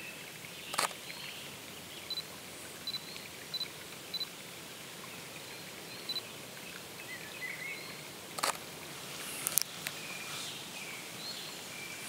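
Wind in a beech forest with songbirds calling: a short high note repeated several times in the first few seconds, then scattered chirps. A few sharp clicks break in, one about a second in and two more near the end.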